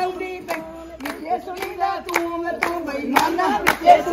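Women singing a folk song together, clapping their hands in time at about two claps a second; the singing grows louder near the end.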